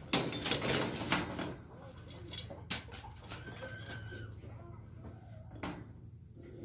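Steel handle-bracket parts of a utility cart rattling, then needle-nose pliers clicking sharply a couple of times on the metal retaining pin as it is bent over. A bird calls once faintly in the background, a little over halfway through.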